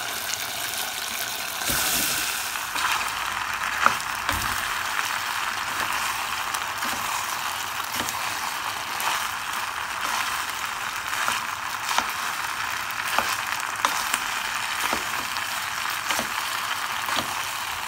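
Hot tomato-paste sauce sizzling in a pot as drained penne is tipped in, with a louder swell about two seconds in, then stirred with a spoon that clicks and scrapes against the pan.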